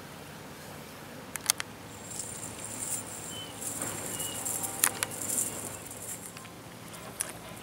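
Outdoor ambience of insects buzzing high and thin, with a few sharp clicks and light pattering.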